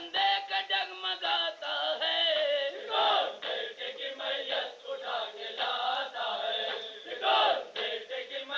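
Men's voices chanting an Urdu noha, a mourning lament, in a wavering, melismatic recitation.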